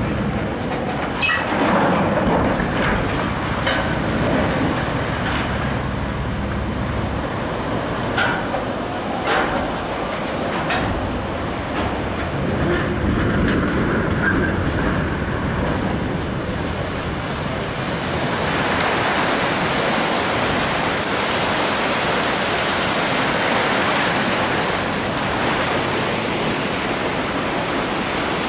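Ship launch: a steady rush of water and rumble as the hull slides in, with a few short sharp sounds in the first half and a hissier rush of spray in the last ten seconds.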